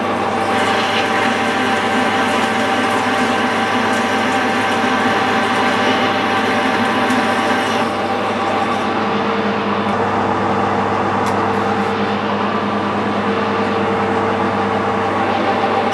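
Metal lathe running under load with a parting tool cutting into a spinning steel bar: a steady mix of motor and gear whine with the hiss of the cut. The high hiss eases a little about halfway through.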